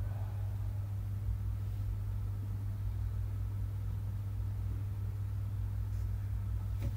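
Steady low hum of background noise, with a faint click near the end.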